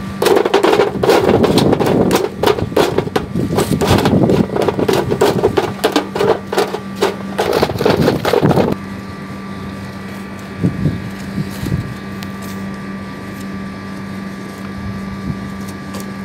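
Charcoal briquettes poured from a paper sack, clattering and tumbling into a sheet-metal grill tray. The clatter stops abruptly about nine seconds in, leaving a steady low hum with a few soft handling knocks.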